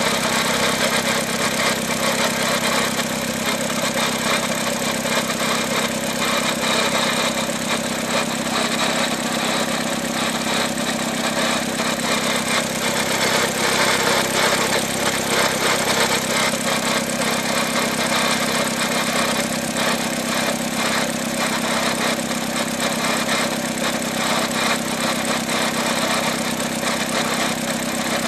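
Great Wall Florid's 1.5 VVT four-cylinder engine idling, with a steady fast rattle from the gearbox side. The mechanic puts the noise down to the clutch release bearing, the clutch disc springs, or a gearbox low on oil with its pinion grinding.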